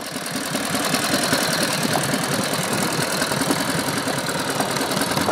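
The 1916 Traub's hand-built 76 cubic inch side-valve, twin-cam V-twin engine running as the motorcycle is ridden, a rapid, steady beat of firing pulses. The sound swells over the first second.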